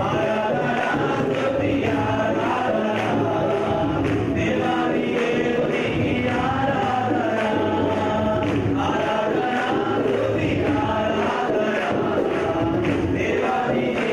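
A large congregation singing a worship song together, many voices at once, with hand clapping along.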